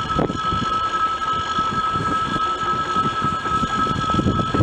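ES2G "Lastochka" electric train running away down the track, its wheels on the rails giving an uneven low rumble, with a steady high-pitched whine throughout.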